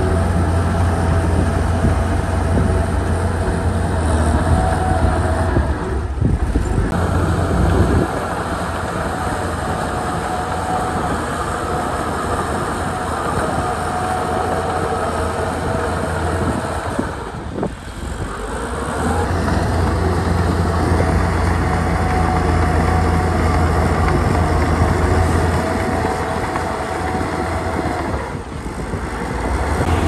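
Heavy diesel engine of a Komatsu crawler bulldozer running steadily and loud under load while pushing earth, easing off briefly three times.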